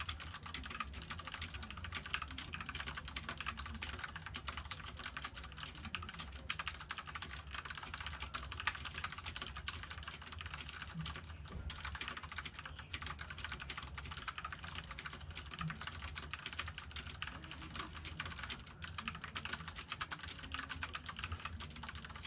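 Fast, continuous typing on a Ducky Shine 5 mechanical keyboard with tactile Cherry MX Brown switches and PBT-top keycaps: a dense stream of key clacks, with a few brief pauses.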